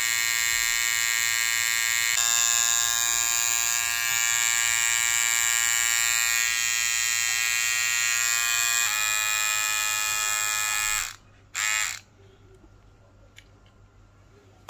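Daling DL-1097 cordless hair trimmer fitted with a Wahl T-Wide blade, running at speed with its cam follower filed clear of the motor shaft: a steady electric buzz at about 7,000 rpm, its pitch shifting slightly a couple of times. About eleven seconds in it is switched off, briefly spun up again for under a second, then stops.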